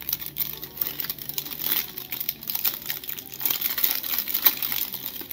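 Clear plastic bag crinkling in the hands as it is worked open, a dense run of irregular crackles.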